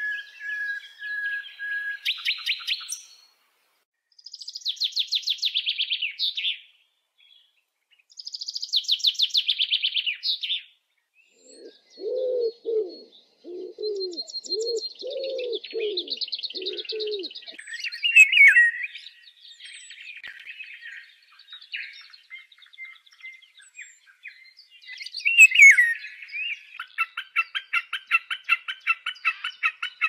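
Common nightingale singing: a long held whistled note, then fast rattling trilled phrases. About twelve seconds in, a wood pigeon coos a series of low, evenly spaced coos under higher chirps. Near the end, a fast even run of repeated chipping calls starts.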